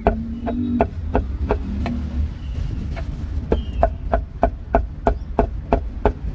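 Cleaver chopping roast meat on a chopping block in quick, even strokes, about three a second, with a short pause partway through. A steady low rumble runs underneath.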